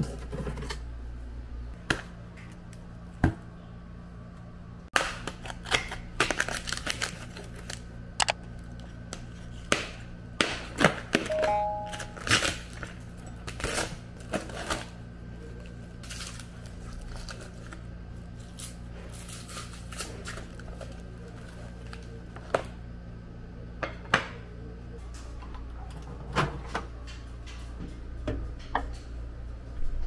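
Kitchen handling noise: frozen chicken in plastic food trays and containers being taken from a freezer and moved about, giving scattered clicks, crinkles and knocks over a steady low hum. Near the end the chicken is loaded into a microwave oven, with a couple of sharper knocks.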